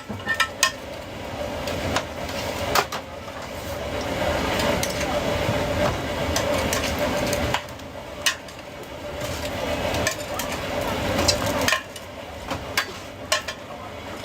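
Kitchen clatter: metal utensils knocking and scraping against pots and pans in a string of sharp clicks, over a steady hum.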